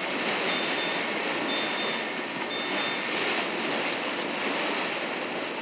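Steady rushing of sea water as an ocean liner's bow cuts through the waves, with a short faint high tone repeating about once a second in the first half.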